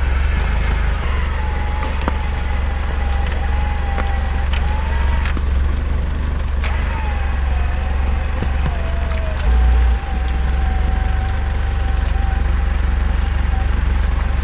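Off-road pickup's engine running with a steady low rumble and a wavering whine over it. Several sharp cracks come in the first seven seconds, and a brief heavier thump comes near the end.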